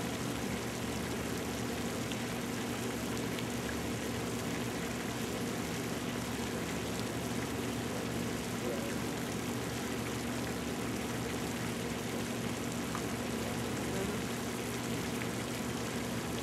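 A steady low engine hum under an even hiss.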